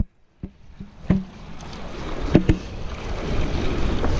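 Handling knocks on a chest-worn camera, about six sharp bumps in the first few seconds, as hands and a spinning reel knock against it while a fish is being reeled in. Wind rush on the microphone and river noise build up through the rest.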